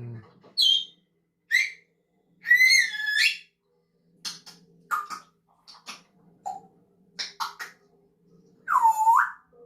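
African grey parrot vocalising: a few short whistles and a wavering whistled squeak, then a string of scattered clicks and pops like beatboxing, and near the end one lower swooping whistle.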